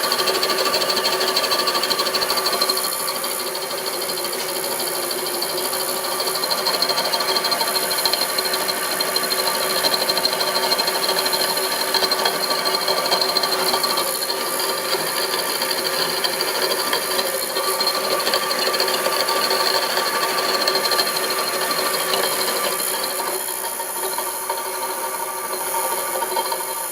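Homemade milling machine running steadily, a constant motor whine with a light mechanical rattle; it eases slightly about three seconds in and again near the end.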